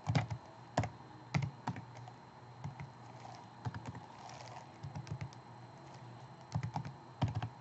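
Typing on a computer keyboard: irregular keystrokes, single and in short quick runs with pauses between, as a barcode number is entered.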